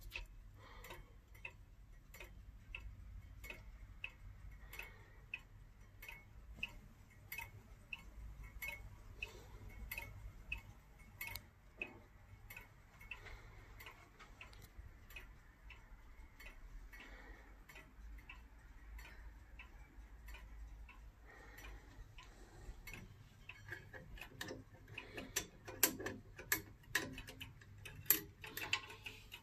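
Hermle 1970s Comtoise-style weight-driven pendulum wall clock ticking steadily, about three ticks every two seconds. In the last few seconds, louder irregular knocks and rubbing from handling close to the clock.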